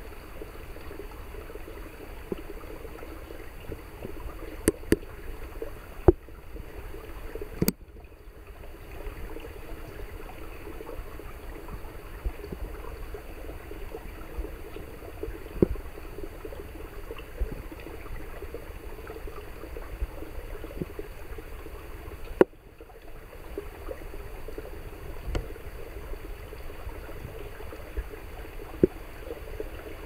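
A shallow woodland creek trickling over rocks: a steady, gentle babble of water at a mere trickle, with occasional sharp clicks scattered through it.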